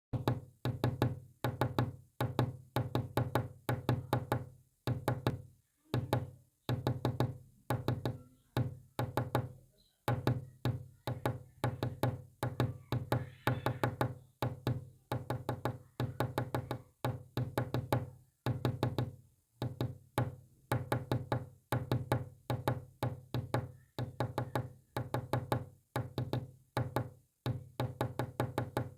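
Morse code played as quick trains of knocking clicks, in groups separated by short pauses.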